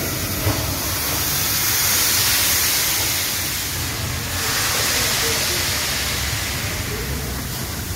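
Steam locomotive hissing steam steadily, with a low rumble underneath; the hiss swells twice.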